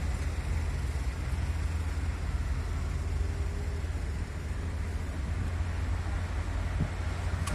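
Steady low rumble of a car being driven, engine and road noise with no distinct events.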